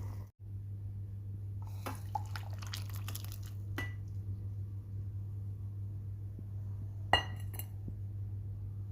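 A metal spoon clinking against a drinking glass: a few light clinks about two to four seconds in, then one sharp ringing clink and a smaller one about seven seconds in. A steady low hum runs underneath.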